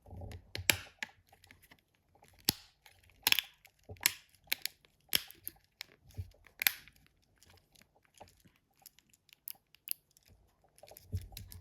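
Plastic front cover of a Nokia N73 phone being pressed onto the phone body, making a series of irregular sharp clicks and snaps as it seats.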